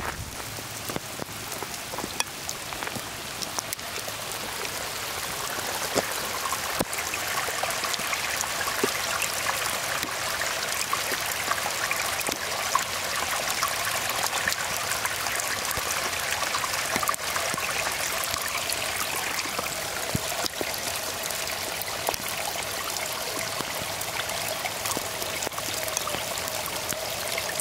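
Steady rain with drops pattering close by, and rainwater trickling and gurgling over stones where it runs down the trail. The running water grows louder a few seconds in.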